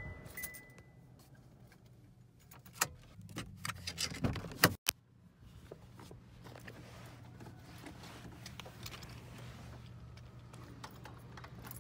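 Car keys jangling and clicking as the key is handled at the ignition, with a brief high tone at the start and an irregular run of light clicks. Later come a few quieter clicks as the driver's door handle is worked, over a faint steady low hum.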